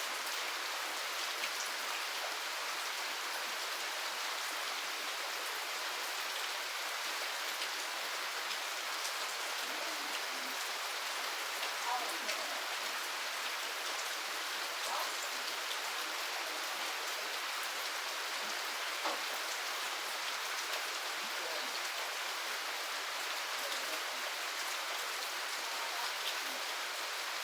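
Steady rain falling, an even hiss with single drops ticking here and there.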